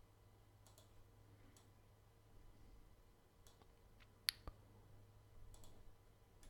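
Near silence: room tone with a faint steady hum and a few faint clicks, one sharper click about four seconds in.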